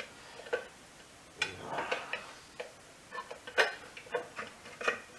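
Irregular metallic clicks and clinks of hand tools, a wrench or socket, knocking against motorcycle parts while working a fastener.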